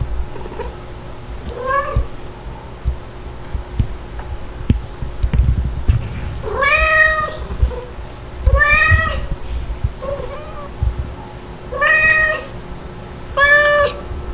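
Kitten meowing repeatedly, about six arching calls, the first faint, the louder ones coming in the second half.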